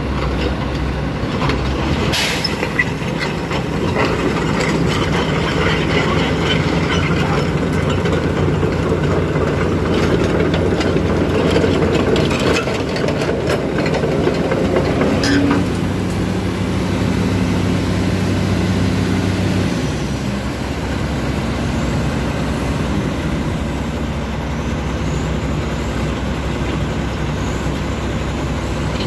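Diesel engine of a Lovol FR220D crawler excavator running steadily, its note shifting as the working load changes, with a couple of sharp metallic clanks.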